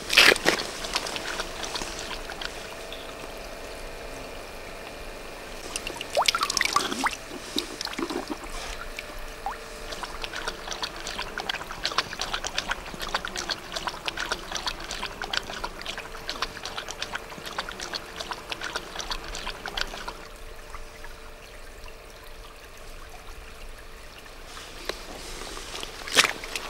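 A wolf drinking from a shallow stream: quick lapping and splashing in the water over the trickle of the stream, thickest through the middle stretch. There are a few louder sudden sounds at the start, about six seconds in and just before the end.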